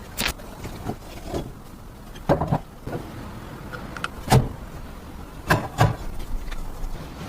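Irregular knocks and clicks of metal parts and tools being handled, as on a rusty vintage bathroom scale being worked on. There are single sharp knocks near the start, a short cluster about two and a half seconds in, the loudest one about four seconds in, and a quick pair about five and a half seconds in.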